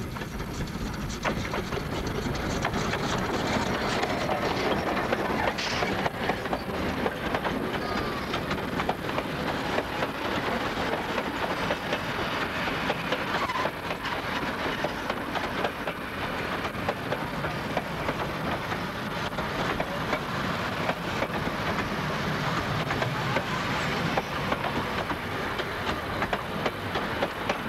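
W class steam locomotive W934 passing close by with a train of wooden passenger carriages: a continuous clatter of wheels clicking over the rail joints as the carriages roll past.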